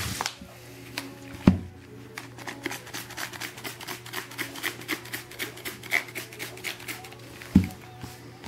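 Plastic trigger spray bottle squeezed over and over, a rapid run of short spritzes dampening strips of mink pelts for blocking. A loud thump comes about a second and a half in and another near the end.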